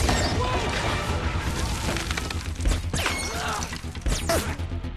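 Film action sound mix: a sudden loud crash, then continuous smashing and crashing of debris over a dramatic score with a heavy low rumble. Sharp impacts stand out near three seconds in and again about a second later.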